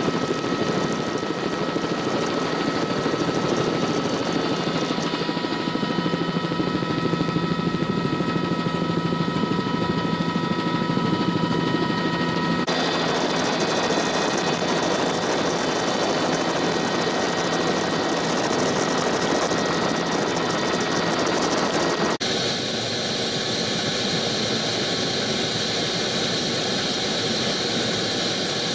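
Helicopter engine and rotor noise heard from on board: a loud, steady drone with several high, even whining tones. The sound changes abruptly twice where the footage is cut, the last part with a stronger high whine.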